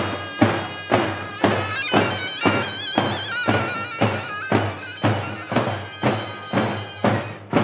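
Davul bass drums beaten in a steady Turkish halay rhythm, about two heavy strokes a second, under a reedy zurna playing a held, ornamented folk melody.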